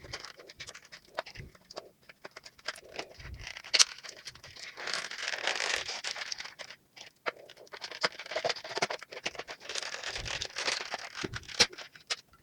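Small toy packaging being opened and handled: crinkling rustles and light clicks as tiny plastic toy teacups and saucers are taken out.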